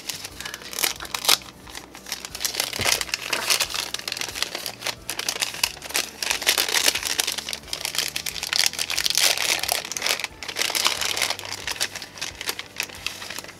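Tissue paper crinkling and rustling as it is unfolded by hand, an irregular run of crackles that gets busier in the second half.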